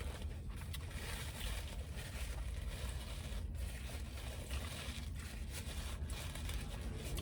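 Steady low rumble and hiss inside a car's cabin with the engine running.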